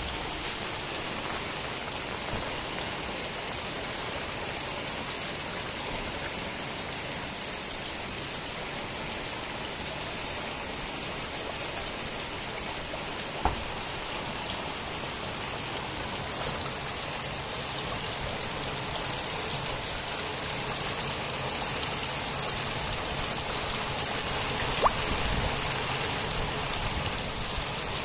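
Heavy rain falling steadily on a concrete rooftop: a dense, even hiss, a little louder in the last third, with two sharp taps, one about halfway through and one near the end.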